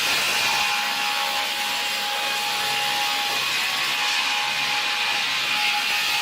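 Sawmill saw cutting through wood: a steady, high-pitched cutting noise with a constant whining tone over it.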